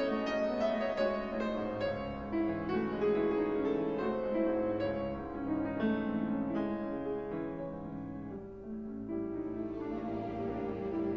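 Instrumental piano music, a run of struck notes.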